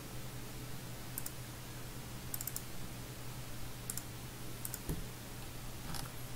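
Scattered clicks of a computer mouse and keyboard, several coming in quick pairs like double-clicks, over a low steady hum.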